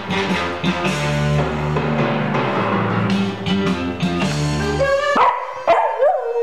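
TV theme music with heavy drums playing, then cutting off about five seconds in, leaving a Pembroke Welsh Corgi howling along: a wavering howl that slides up and down in pitch.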